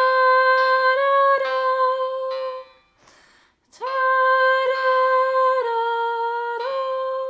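A woman singing a slow, improvised upper voice in long held notes over a quiet bass line in F minor, in two phrases with a short break between them. The pitch steps up and back in the first phrase, and down a step and back in the second.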